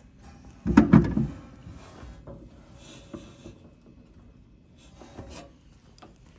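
Handling noise: a few knocks about a second in, then faint rubbing and rustling, with a couple of small clicks near the end.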